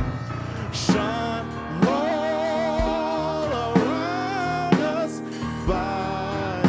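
Gospel vocal group singing with a live band: voices hold long notes with vibrato over a bass line and a drum beat about once a second.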